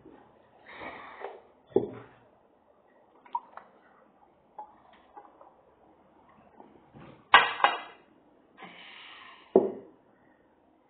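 Someone drinking from a glass: breaths and gulp-like sounds, with several sharp knocks from the glass being handled and set down on a table. The loudest sounds come about seven seconds in.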